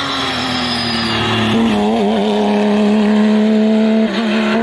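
Porsche 911 rally car's flat-six engine at high revs as the car passes and pulls away, a steady, loud engine note with a brief break for a gear change about four seconds in.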